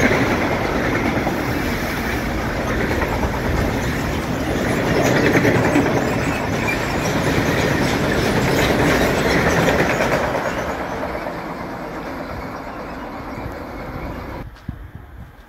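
Freight train of covered sliding-wall wagons running past close by, a loud steady rumble and rattle of wheels on rails. It eases off after about ten seconds and cuts off suddenly near the end.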